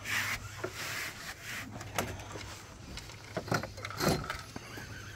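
Irregular rubbing and scraping with a few light knocks, over a steady low hum: handling noise aboard a small fishing boat while an angler plays a fish on a rod and baitcasting reel.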